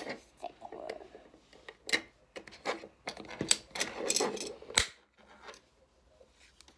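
Small hard plastic Playmobil dollhouse pieces being handled, knocked together and set down on a table: a run of sharp clicks and clatters, loudest in the first five seconds, after which only faint handling remains.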